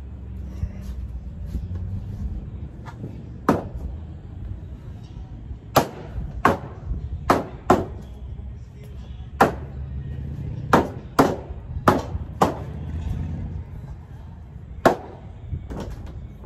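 Mallet striking plastic shelving parts to knock them together during assembly. About a dozen sharp blows land at uneven intervals, most of them in quick clusters through the middle.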